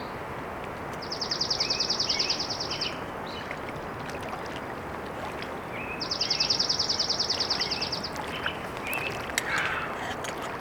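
A songbird sings a rapid, high, even trill of about two seconds, twice, about five seconds apart, with other birds chirping briefly, over a steady rushing background. A few sharp clicks come near the end.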